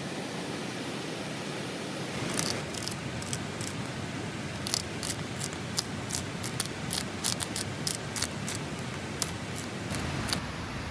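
Steady hiss of rain, with a run of about twenty short, sharp, irregular clicks or snips over it from about two seconds in.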